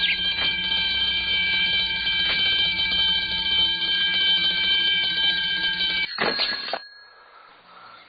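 Alarm clock ringing with a shrill, steady, rattling ring, then stopping abruptly with a short clatter about six seconds in.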